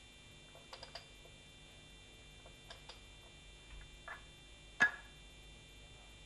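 Faint metallic clicks as a locating pin is pushed through the bell housing into the flywheel to lock the BMW M42's crankshaft at top dead centre of cylinder one, with one sharper click a little before five seconds in. A faint steady hum runs underneath.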